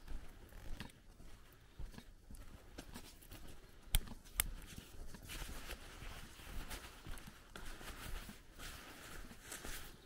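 Footsteps walking on a dirt path, with fabric rustling against the microphone; two sharp clicks about four seconds in, the first the loudest sound.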